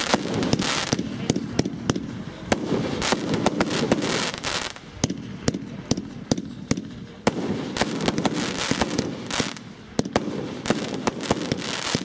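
Evolution Fireworks 'Winternight' compound cake firing shot after shot: many sharp bangs and pops in quick succession, with swells of crackle and hiss as the bursts break.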